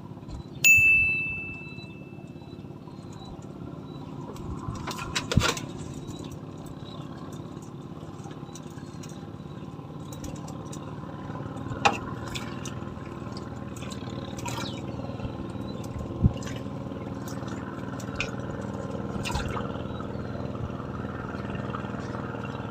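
A single bright ding about a second in that rings and fades over a couple of seconds, then a steady engine hum with a few sharp clicks and knocks.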